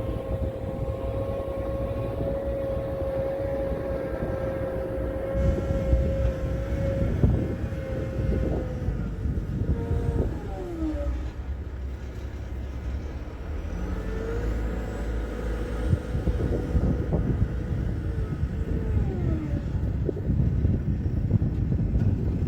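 Mecalac 12MTX mobile excavator running, with a heavy engine rumble and a steady whine over it. The whine glides down and drops out about ten seconds in, comes back a few seconds later, and glides down again near the end.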